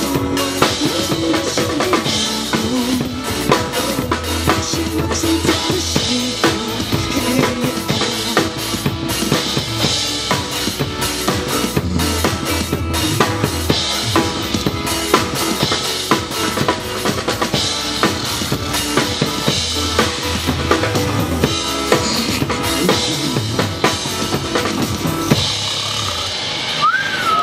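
A drum kit played along to a backing pop track: a steady beat of bass drum, snare and cymbals over the song. The accompaniment thins out near the end.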